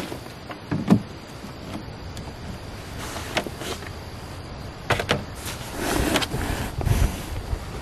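Knocks, bumps and rustling of a person shifting gear and climbing into a pickup truck bed under a canopy shell. A sharp knock comes about a second in, more knocks follow a couple of seconds later, and a busier cluster of clunks and rustling comes near the end.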